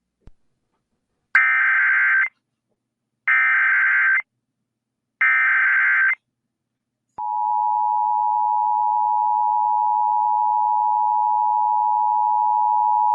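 Emergency Alert System activation: three buzzy digital SAME header data bursts, each about a second long and a second apart, then the EAS attention signal, a steady two-tone alert beginning about seven seconds in.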